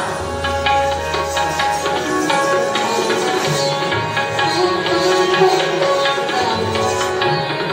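Indian classical music for dance: tabla strokes in a quick rhythm over a melody of held notes, with a low drone under the first two seconds.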